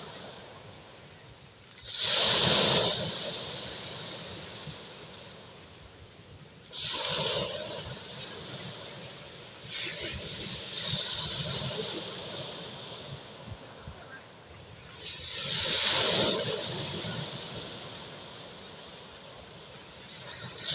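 Sea waves breaking on the shore: four surges of surf, each rising sharply and then washing away slowly over a few seconds.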